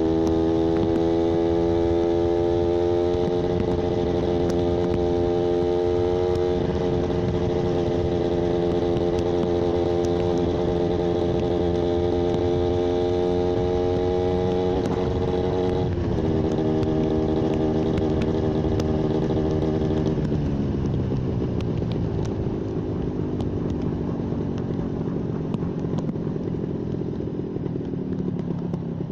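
Yamaha 125ZR's single-cylinder two-stroke engine under way, its pitch slowly climbing with two sudden drops as it shifts up, about a quarter of the way in and again just past halfway. In the last third the pitch falls steadily and it gets a little quieter as the bike slows down off the throttle.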